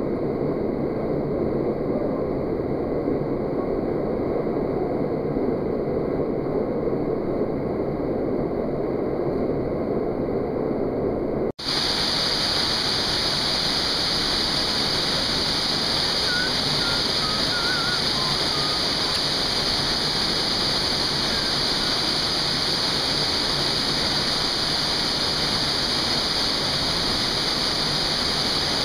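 Steady rush of a waterfall cascading down a rock slot into a pool. About eleven seconds in it cuts abruptly to a closer, hissier rush of the falling water.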